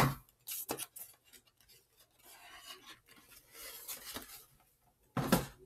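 Model train boxes being handled: a knock and a few clicks at the start, then soft scraping and rubbing as the boxes are moved against each other, and a louder bump about five seconds in.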